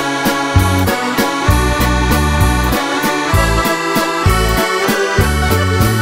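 Background music with a steady beat under a sustained melody.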